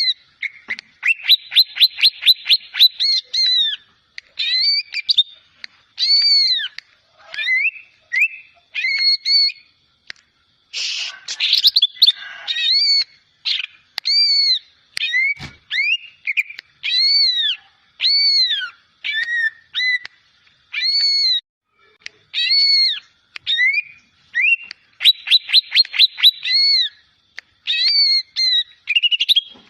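Young cucak ijo (leafbird) singing: a long string of clear whistled, arching notes given one after another, broken by fast runs of quick repeated notes near the start and again near the end. It is a young bird still learning its song.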